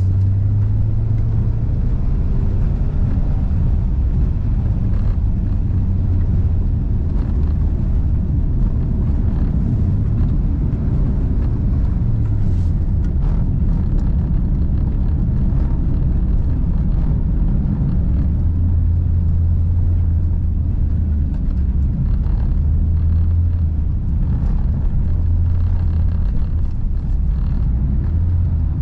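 Subaru Forester SJG's turbocharged flat-four engine running hard through a timed rally-sprint run on ice. It drones low and loud, its pitch rising and falling as the car accelerates and slows between corners.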